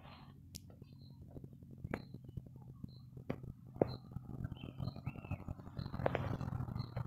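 A vehicle engine approaching along the road, its low hum growing steadily louder over the last two or three seconds, with scattered light clicks and short high chirps over it.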